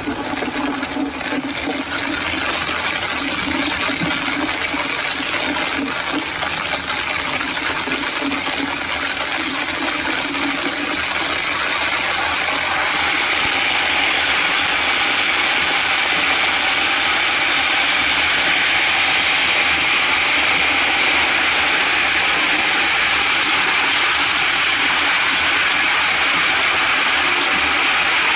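Steady hiss of rain and wet-road noise heard from inside a moving vehicle, with a mechanical rattle from the vehicle; the hiss grows louder about halfway through.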